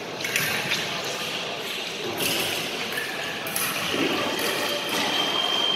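A fencing scoring machine sounds a steady high electronic tone starting about five seconds in, the signal that a hit has registered. Before it come clicks and scuffs of footwork and blade contact on the piste, echoing in a large hall.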